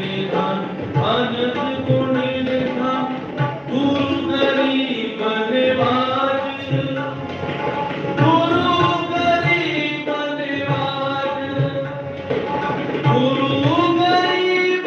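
Sikh shabad kirtan: a male voice sings the hymn over harmonium chords, with tabla keeping a steady rhythm.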